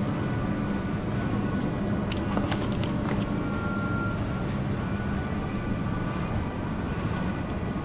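Supermarket background: a steady low hum from open refrigerated display cabinets and store ventilation, with a few faint clicks and a short faint tone about three and a half seconds in.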